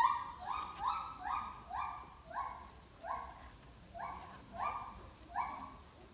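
Siamang gibbons in a calling display: a string of barking hoots, each a short level note, about three a second at first, then slowing and growing fainter.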